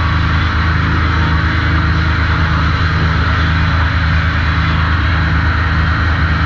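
Sawmill machinery running steadily at the trim saw line: a constant low hum with a wash of noise above it and no distinct cut.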